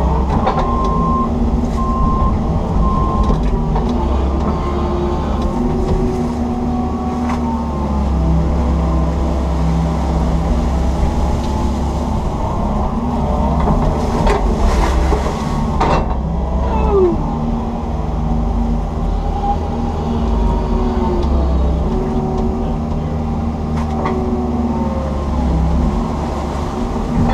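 Komatsu PC160 hydraulic excavator's diesel engine running under load, heard from inside the cab, with a hydraulic whine that comes and goes and shifts in pitch as the boom and bucket work. A few knocks about halfway through as the bucket handles wet weeds and silt.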